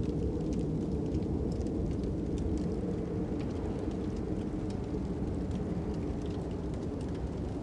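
Fire crackling with scattered sharp pops over a steady low rumble of wind.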